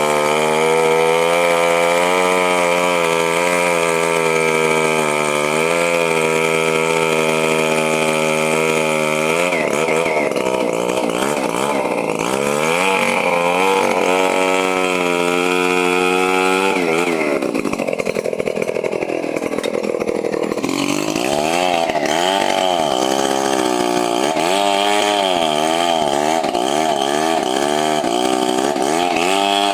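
Chainsaw running at full throttle while cutting wood, its engine note dipping under load and picking up again. About 17 seconds in, the pitch sags lower for a few seconds, then rises and falls repeatedly.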